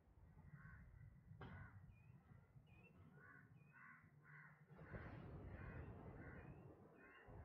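Crows cawing faintly and repeatedly, about two calls a second, with small chirps above them, over a low rumble that gets louder about five seconds in.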